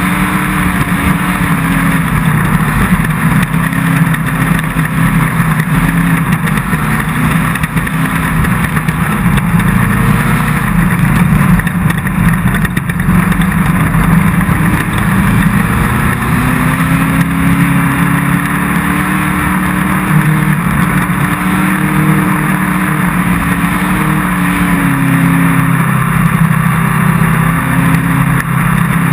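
Off-road race car's engine running hard under load, its pitch rising and falling with the throttle, over a constant loud rush of noise.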